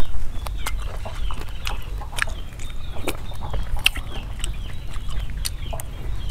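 Close-miked eating sounds: wet chewing and lip-smacking clicks, with a spoon scraping a rice bowl. Chickens call in short falling peeps in the background, over a low rumble.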